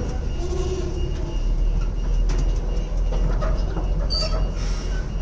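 Heavy truck's diesel engine running, a steady low rumble, with a short high metallic squeal about four seconds in.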